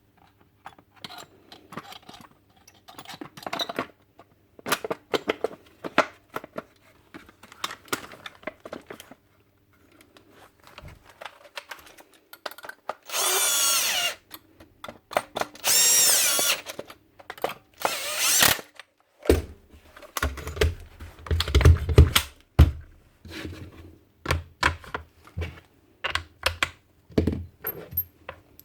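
Power drill whirring in three short runs, amid clicks and knocks of small parts and tools being handled.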